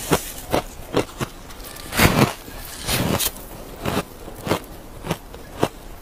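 Close-up crunching of shaved ice being bitten and chewed, crunches coming about two a second, loudest around two and three seconds in.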